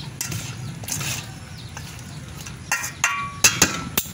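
Metal spoon scraping and clinking against a large stainless steel bowl while a chopped vegetable salad is mixed, with a few scattered clinks and then several short ringing strikes in the last second and a half. A low steady hum runs underneath.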